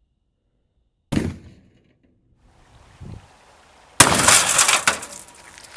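A sharp gunshot-like bang about a second in, then about four seconds in a louder crash with breaking glass that crackles on for about a second, as a washing machine is shot at with a shotgun.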